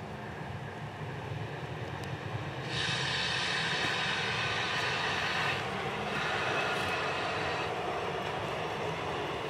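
Steam locomotive running with a train: a steady low rumble, joined about three seconds in by a loud hiss that drops back for a moment past the middle and then carries on.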